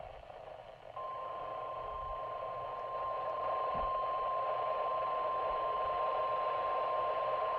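NOAA Weather Radio's 1050 Hz warning alarm tone: a single steady, unbroken tone that comes in about a second in over a hiss of radio static. It is the alert signal that precedes a broadcast weather warning.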